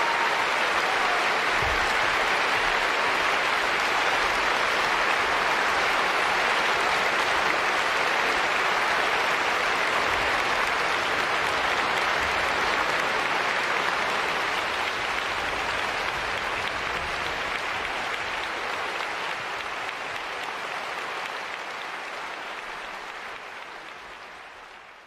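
Audience applauding steadily. The applause fades away over the last ten seconds or so.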